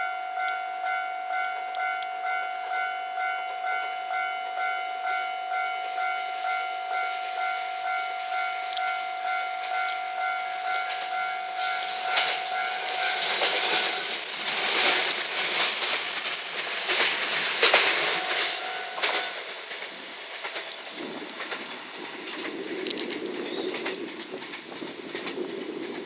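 Japanese level-crossing warning bell ringing in a steady beat of about two strokes a second. About halfway through, a JR West 227 series three-car electric train runs through the crossing, loud with clattering wheels on the rail joints, and the bell stops as it passes. The train's rumble then fades away.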